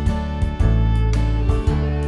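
Background music with plucked guitar over a steady bass, notes changing about every half second.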